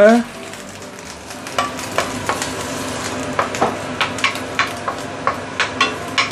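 Chopped garlic and ginger sizzling in oil in a stainless steel wok, with a wooden spatula stirring and tapping against the wok: a run of quick taps and scrapes, two or three a second, starting about a second and a half in.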